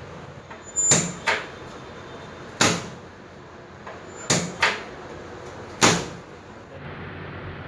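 Six sharp knocks, some in close pairs and irregularly spaced, over a steady background hum.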